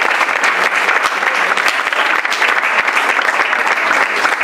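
Audience applauding: many hands clapping at once in a dense, steady clatter.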